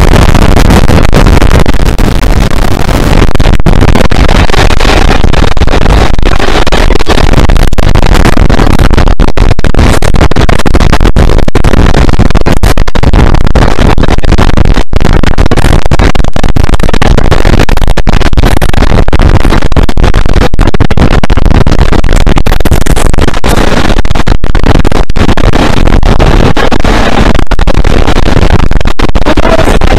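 Loud, distorted wind buffeting on a microphone held out of a moving train's window, mixed with two Class 47 diesel locomotives working hard at the head of the train. The overloaded sound drops out for a split second many times.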